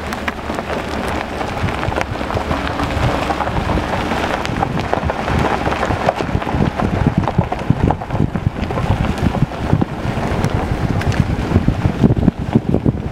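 Wind buffeting the microphone over the rumble of a car's tyres on a rough dirt road, with many small crackles throughout.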